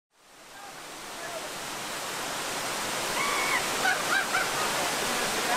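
Steady rush of a small waterfall splashing down rock ledges, fading in from silence over the first two seconds.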